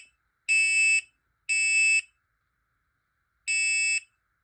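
Smoke alarm sounding its three-beep evacuation pattern: shrill, high-pitched beeps of about half a second each, a pause of about a second and a half, then the next set begins. It has been set off by a quick spray of aerosol smoke-test gas.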